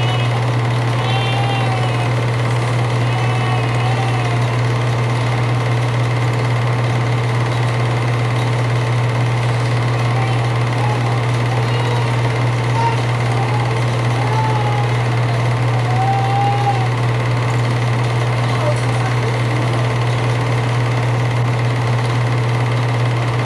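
Film projector running steadily through the reel, an even mechanical whirr with a loud low hum.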